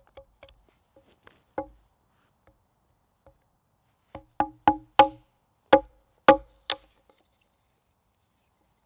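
A hatchet set into a short stick of dry rhododendron, knocked down against a log to split it. A few light taps, then a run of about seven sharp, ringing wooden knocks between about four and seven seconds in, as the axe drives through and the stick splits.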